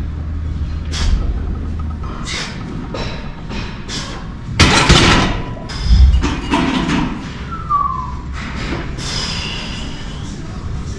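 Weight-room thuds and clanks, with the loudest two close together about five and six seconds in.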